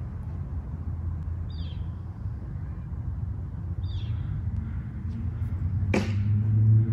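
A low engine rumble that grows louder over the last couple of seconds. Two short high chirps come about one and a half and four seconds in, and a sharp click about six seconds in.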